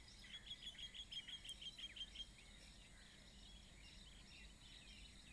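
Faint bird calling in the background: a quick run of about a dozen short, high chirps in the first two seconds, then only faint room hiss.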